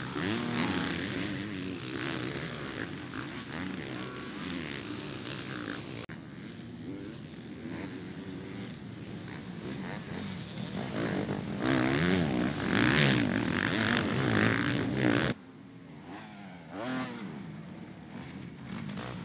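Two-stroke off-road motorcycle engines revving, their pitch rising and falling as they are ridden hard. The sound is loudest a little past the middle, then drops suddenly to fainter engine noise.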